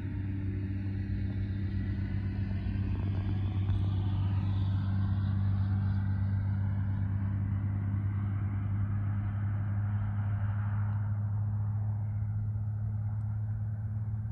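A car engine running steadily with a low hum. A rushing noise swells over the middle and fades toward the end.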